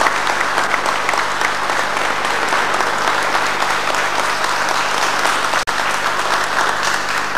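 Crowd applauding steadily, with a momentary dropout about five and a half seconds in.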